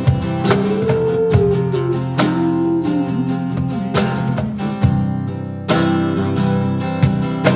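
Instrumental break in a live pop-worship song: acoustic guitar strumming steadily with the band. A single melody line steps down in pitch over the first few seconds.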